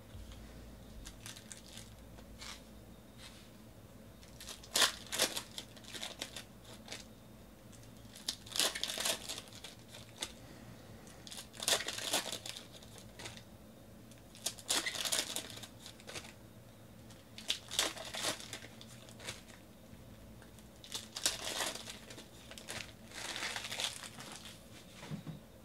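Foil trading-card packs being crinkled and torn open by hand, in short bursts every few seconds.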